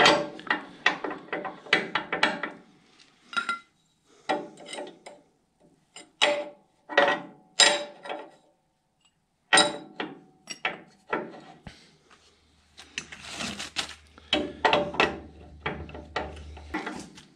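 Hand tools and steel suspension parts clinking and knocking as they are handled on a control arm, in irregular short bursts with pauses between.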